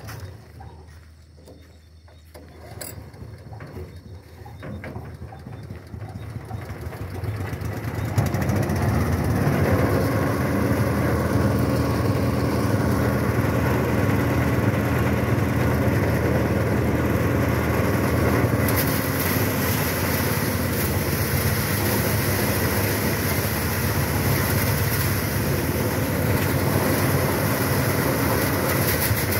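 Rice threshing machine spinning up over several seconds, then running steadily with a loud mechanical hum.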